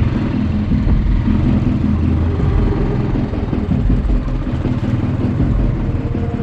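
Motorcycle engine running steadily under way on a rough gravel mountain road, heard from a camera on the bike.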